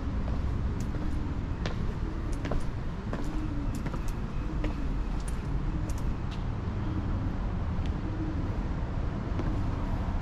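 Footsteps going down a metal staircase: irregular sharp clicks and knocks, about one or two a second, over a steady low rumble.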